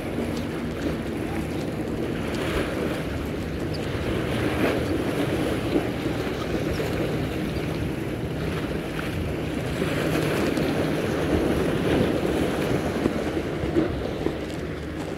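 Wind buffeting the microphone and waves washing against a rock breakwall, with a low steady hum of boat motors on the channel beneath.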